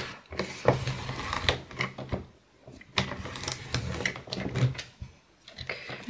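Cutting head of a Fiskars rotary paper trimmer run twice along its rail over a plastic laminating sheet, a scraping, clicking slide each time. The blade is failing to cut through the sheet, perhaps a sign that it needs changing.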